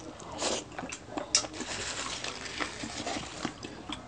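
Mukbang eating sounds: chewing and mouth noises with small clicks and crackles of hands picking food from a glass dish, and one sharper click about a second and a half in.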